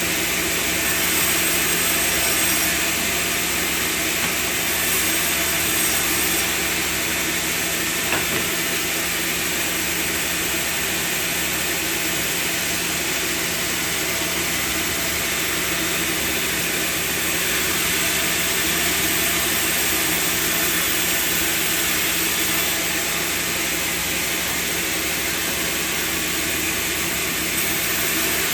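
Sawmill machinery running steadily with a constant hum and hiss, and one brief click about eight seconds in.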